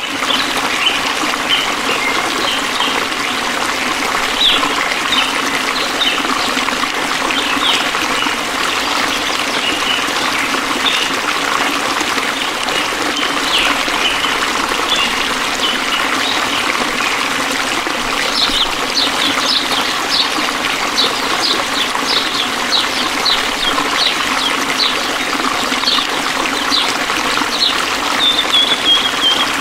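A small stream trickling and flowing steadily, with many short high animal chirps over it that come thicker in the second half, and one drawn-out falling call near the end.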